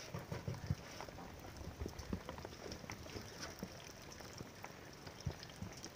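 A doe rabbit and her kits eating at a feeder: faint, irregular crunching and clicking of chewing as they jostle for the food.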